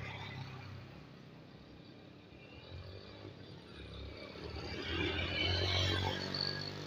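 Electric paint sprayer's blower motor running with a steady hum, growing louder about five seconds in and then easing off.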